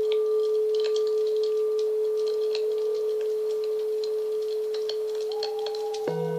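A singing bowl ringing out in a long, steady, slowly fading tone with a gentle pulse, over scattered light crackles of a campfire. Just before the end another, deeper bowl is struck and starts to ring.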